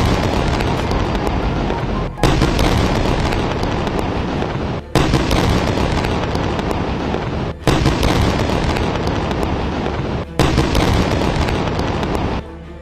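A run of explosions. A new loud blast comes about every two and a half to three seconds, each followed by a crackling rumble that fades a little before the next. The sound drops away shortly before the end.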